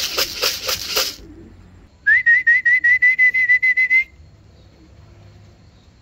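A person whistling to call racing pigeons down into the loft trap: one trilled whistle held at a steady pitch for about two seconds, starting about two seconds in. It comes after a second of rapid sharp clicks at the very start.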